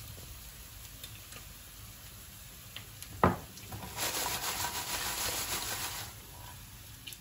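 Salted fried potato chips tossed in a glass bowl lined with paper towel: a dry rustling and scraping for about two seconds, after a single knock about three seconds in.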